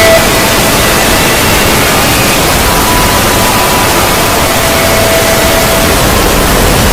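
Synthesized 'void' sound effect: a loud, steady wall of static-like noise, with faint held tones showing through now and then.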